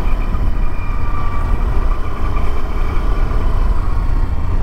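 Ride noise from a moving two-wheeler: wind buffeting the camera microphone as a steady low rumble, with the engine running evenly and a faint steady whine underneath.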